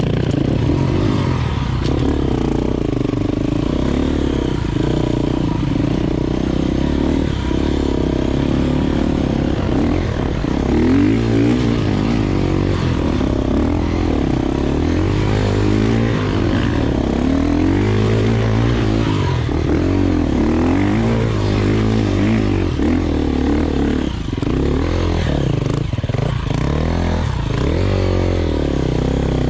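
Enduro motorcycle engine revving up and down over and over, the throttle opened and closed as the bike rides off-road, with some clatter from the bike.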